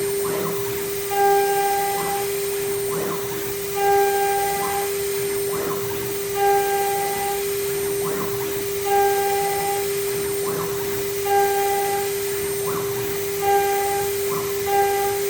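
CNC router's 3.5 kW spindle running with a steady high whine, while its NEMA 34 closed-loop stepper motors drive the axes in repeated moves. A higher whine comes and goes every second or so, with a louder swell about every two and a half seconds that comes quicker near the end.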